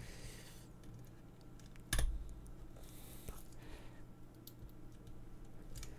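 Flat screwdriver twisting and prying in the seam of a snapped-together plastic car-charger plug housing: light scraping and small plastic clicks, with one sharp click about two seconds in.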